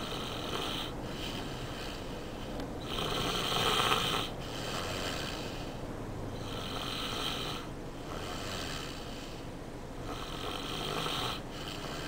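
A sleeping young boy snoring: a series of noisy snoring breaths every two seconds or so, the loudest about four seconds in.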